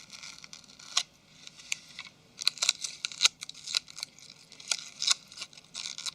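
Hands and a small tool working on a smartphone's rear cover and its internal flex circuit: an irregular run of sharp little clicks and scratches, thickest in the middle of the stretch and about a second in.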